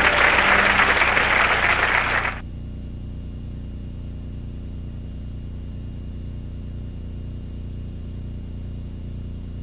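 Studio audience applauding, cut off abruptly about two seconds in. After the cut comes a steady low electrical hum with a faint high whine: the blank gap of an old videotape recording.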